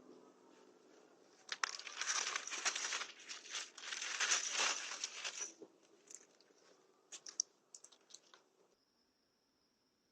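Crinkling, rustling noise close to the microphone for about four seconds, starting a second and a half in, then a few sharp clicks.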